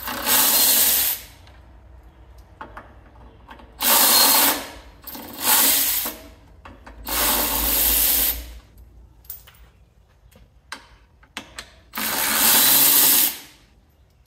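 A cordless power ratchet runs in five short bursts of about a second each, backing out the small 10 mm bolts that hold a car's plastic undertray. Light clicks and handling noises come in between.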